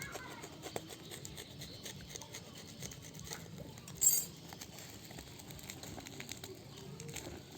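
Small clicks and light rustling of a fishing lure's plastic packaging being handled and opened, with one louder, sharper click about four seconds in.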